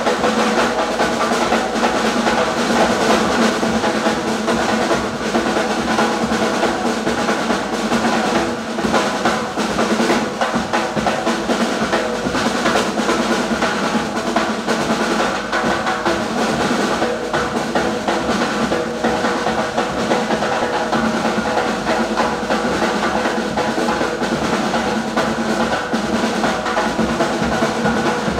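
Bermudan Gombey drumming: snare and bass drums playing a continuous, driving rhythm for the dancers, with no breaks.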